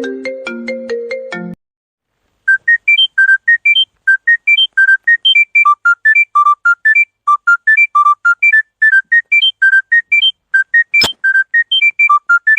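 Smartphone ringtones: one ending on low chiming chords about a second and a half in, then after a short gap a new ringtone of quick, high, short notes playing a repeating melody. A single sharp click is heard near the end.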